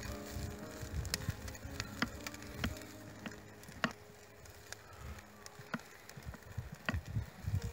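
Kitchen knife clicking and knocking on a wooden cutting board while hot dog sausages are handled and sliced: scattered sharp ticks about a second apart.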